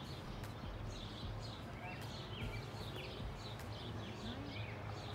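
Small birds chirping, short calls repeating several times a second, over a steady low hum.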